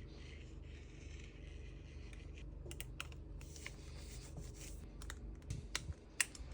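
Irregular light clicks and taps, getting busier partway through, with a few sharper clicks near the end.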